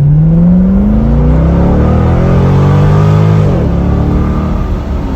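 2007 Corvette C6's LS2 V8 with a Corsa cat-back exhaust accelerating hard. The revs climb steadily, then drop sharply about three and a half seconds in at a gear change and settle to a steady, lower exhaust note.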